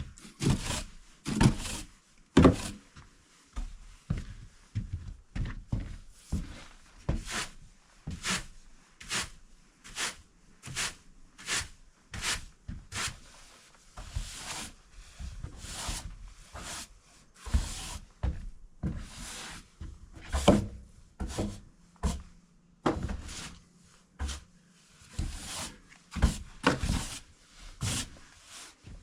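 Broom sweeping snow off a porch: brisk scraping strokes, about two a second, with short pauses between runs.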